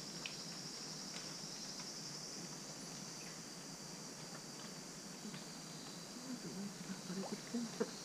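Rainforest insect chorus: a steady high buzzing drone, with a fast pulsing trill over it during the first couple of seconds. A few short, low calls or voice sounds come near the end.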